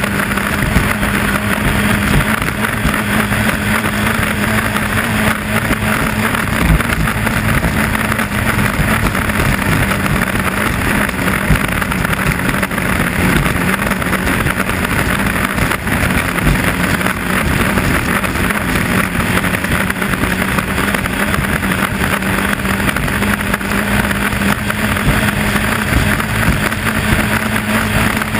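Onboard a 2.5 Liter Stock inboard hydroplane running flat out: its engine holds a steady, loud drone over the rush of wind and spray.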